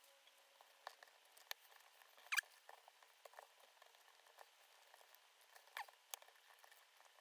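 Faint scattered clicks and short scratchy squeaks of small parts being handled and fitted inside a Sony NW-1000 Walkman, the loudest squeak about two and a half seconds in and another near the six-second mark.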